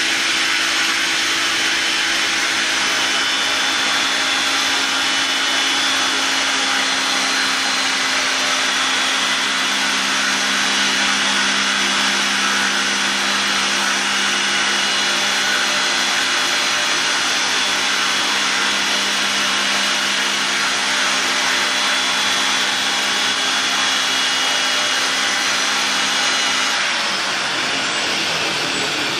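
Radio-controlled helicopter fitted with lit RotorTech night blades, running steadily with a constant whir from its motor and spinning main and tail rotors. Near the end the steady low hum drops away and the sound eases slightly.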